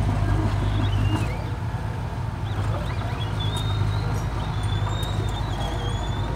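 Komatsu mini crawler dozer's diesel engine running steadily as the machine pushes soil with its blade. A high, wavering squeal rises over the engine in the second half.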